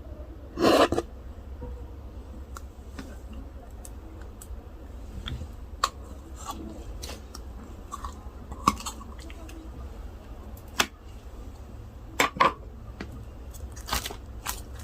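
Scattered sharp clinks and taps of utensils against dishes, with a louder clatter about a second in.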